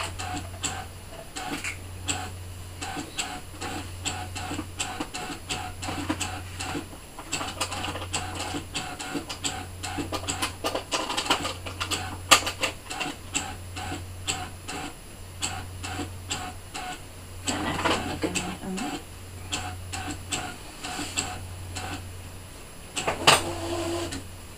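Brother ScanNCut DX SDX1200 cutting machine working through a drawing job with a foiling tool. Its motors make short whirring strokes and steady clicking as the tool carriage and mat move, with a low hum that swells and fades about every second and a half, and a louder click near the end.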